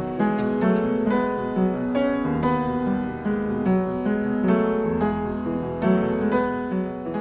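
Piano playing a slow classical passage in an even rhythm: ballet rehearsal accompaniment, with chords over a low bass line.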